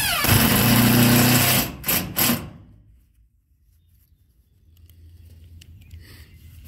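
Power drill driving a washered self-drilling roofing screw into a corrugated metal roof panel: the motor's pitch drops as the screw bites into the steel, runs under load for about a second and a half, then two short trigger pulls seat the screw about two seconds in.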